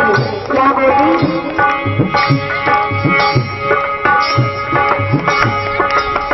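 Ghazal instrumental interlude: tabla playing a steady rhythm with regular deep bass strokes, under held melodic notes.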